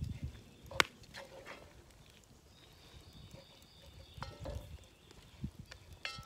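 A spoon knocking and scraping against a cast iron Dutch oven while stirring ground beef, in irregular clinks and thuds with one sharp clink about a second in.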